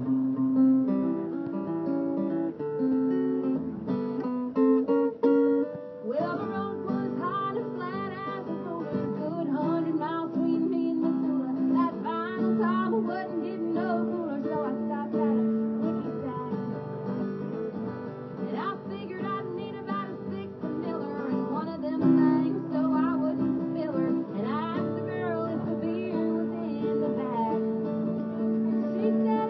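Acoustic guitar strummed live in a country song, with a voice singing over it from about six seconds in.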